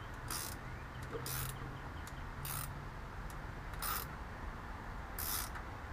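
A screw hose clamp on a rubber coolant hose being tightened with a hand driver: five short ratcheting rasps, one every second or so.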